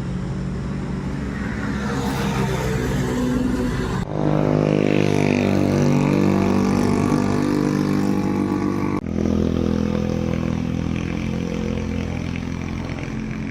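Motor vehicle engines running on a road, in three stretches that cut off abruptly about four and nine seconds in, the engine pitch sliding up and down as vehicles go by.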